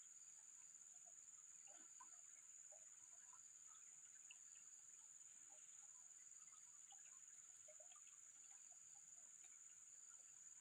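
Near silence: faint outdoor ambience with a steady high-pitched hum and scattered faint chirps.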